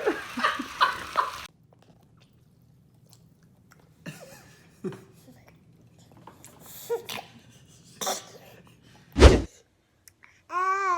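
A short, loud baby fart about nine seconds in, after a few faint small noises. Near the end a baby starts a wavering whine. A voice and laughter run briefly at the start.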